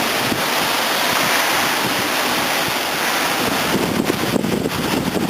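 Hurricane rain and wind making a steady, loud hiss. From about four seconds in, wind gusts buffet the microphone with a fluttering rumble.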